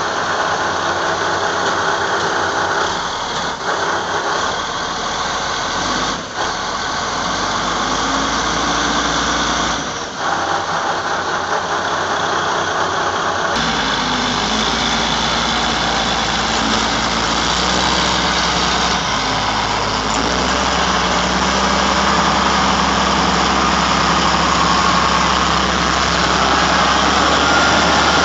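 Diesel engine of a three-axle Liebherr mobile crane running steadily while the crane sits bogged down in deep mud, its tone changing abruptly about halfway through.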